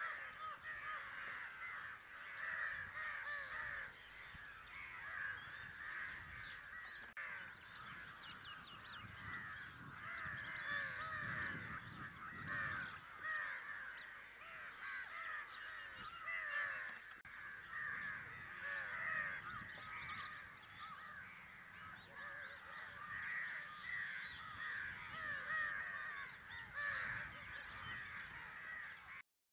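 A large flock of crows cawing, many overlapping calls at once in a continuous din. It cuts off abruptly near the end.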